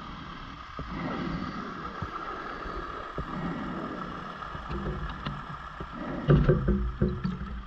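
Scuba diver's breathing heard underwater: a steady hiss, then about six seconds in a louder gurgle of exhaust bubbles with small clicks.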